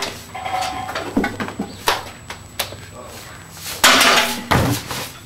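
Metal clanks and knocks as a steel strongman keg is hefted and pushed over a metal loading bar, loudest about four seconds in.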